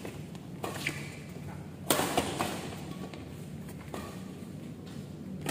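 Badminton rally: rackets striking the shuttlecock with sharp cracks every second or so, the loudest about two seconds in, each echoing briefly in the hall. A steady low hum runs underneath.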